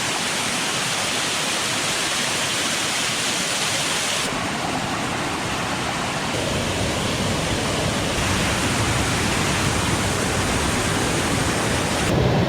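Steady, loud rush of monsoon water, a waterfall or swollen stream, with no pitched sound in it; its tone changes abruptly about four seconds in and again near the end.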